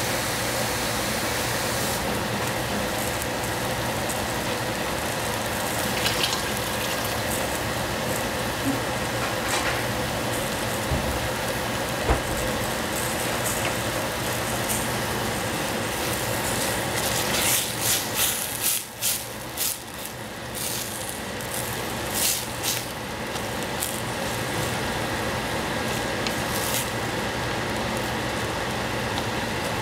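Napa cabbage and shiitake mushrooms sizzling in a stainless steel saucepan over a gas burner: a steady hiss with scattered crackles and pops, busiest a little past halfway. Near the end a wooden spatula stirs the vegetables.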